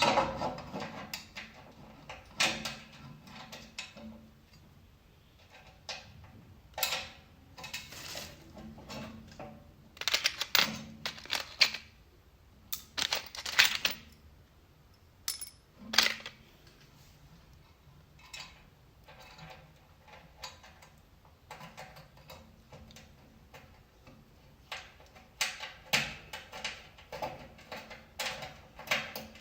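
Irregular metallic clinks, clicks and light knocks of screws, a screwdriver and metal parts being handled while fitting parts to a DTF powder shaker machine, with quiet stretches between them.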